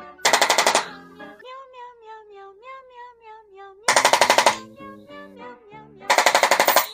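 Chiropractic activator adjusting instrument firing three times, each a rapid rattle of taps lasting about half a second. Between the first two bursts a cat gives a long, wavering cry.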